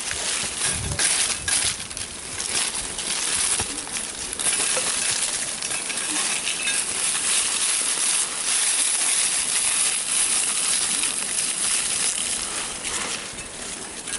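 Hand digging tool repeatedly scraping and chopping into hard clay soil and roots, with gritty crunches of dirt and stray clinks.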